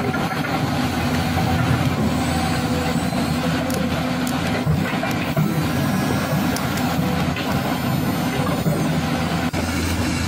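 A steady engine-like hum, with scattered clicks and scrapes as a toy remote-control excavator works its bucket in dry dirt.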